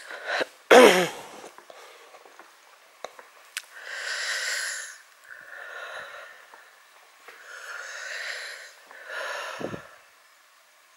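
A person breathing and whispering close to the microphone, heard as several separate soft, breathy puffs. A short, loud sound falling in pitch comes about a second in, and a brief low falling sound near the end.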